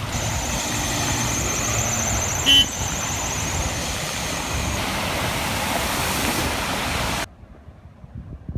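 Traffic on a flooded street: a steady rush of vehicles and water, with a steady high whine through the first half and a short car-horn toot about two and a half seconds in. The sound drops off abruptly near the end.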